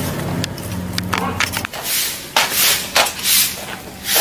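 Broom sweeping across paving: a few short, scratchy swishes, one roughly every half-second, starting about two seconds in. A low steady hum runs under the first second and a half.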